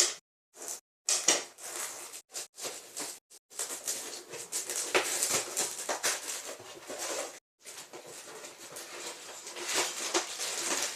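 Cardboard Lego Technic set box being torn open and its contents handled: irregular bursts of tearing, crinkling and rustling cardboard and plastic parts bags, starting in short separate bursts and becoming a near-continuous rustle from about three and a half seconds in.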